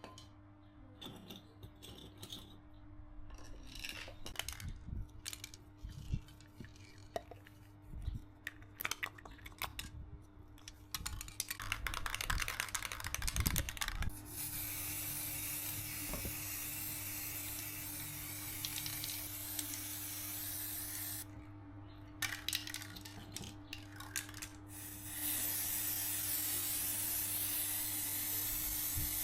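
Scattered clicks and knocks, then about halfway through a steady hiss that stops for a few seconds and starts again near the end.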